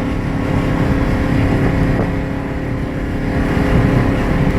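Ford Crown Victoria Police Interceptor's V8 running at a steady highway cruise with road noise, heard from inside the car as a continuous drone with a held tone; the owner has said the engine is misfiring.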